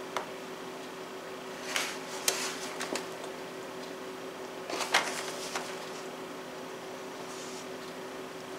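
Disposable aluminum foil pan crinkling and creaking as it is tilted and handled, in a few short crackles over a steady low hum.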